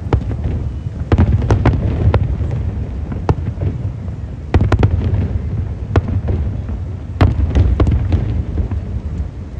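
Aerial firework shells bursting in quick, irregular succession: sharp bangs over a continuous low rumble, with louder clusters of bursts about a second in, midway and about seven seconds in.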